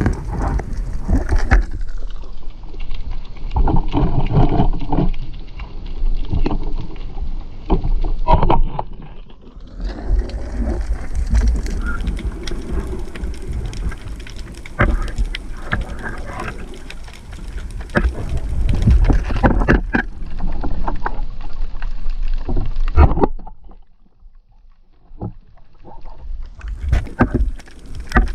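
Water sloshing and bubbling against a camera in the water, with many knocks and clicks; the sound turns muffled for several seconds early on and drops low for a couple of seconds near the end.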